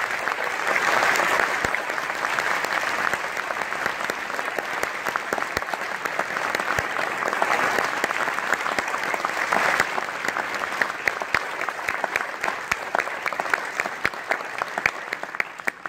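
Audience applauding, dense at first and thinning out into scattered individual claps near the end.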